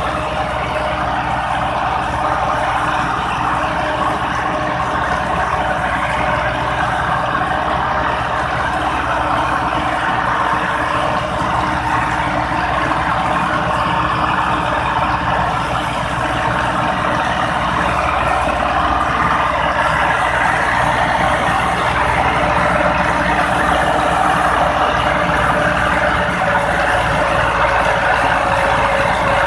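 Massey Ferguson 375 diesel tractor engines running hard under load, pulling a heavy trolley and a chained tractor: a loud, steady engine drone with no let-up.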